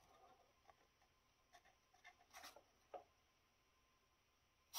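Near silence with a few faint, short scratches: a tool scraping at stubborn adhesive on a chip on the circuit board.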